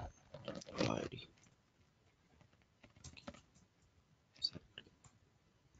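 A few faint, scattered clicks of computer keys and a mouse as short entries are typed into a form, the sharpest click about four and a half seconds in. Some low speech at the very start.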